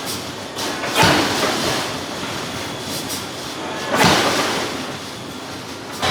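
Giant hydraulic forging hammer striking steel: two heavy blows about three seconds apart, with lighter knocks between them, over a steady machinery rumble.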